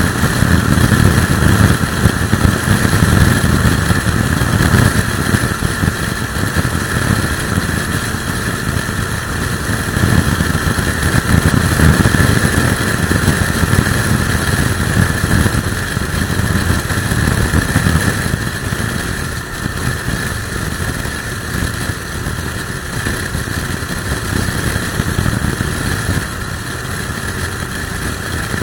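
Strong gusty wind buffeting the microphone of a motorcycle at expressway speed, the low rumble swelling and easing every few seconds, over the steady drone of the bike's engine.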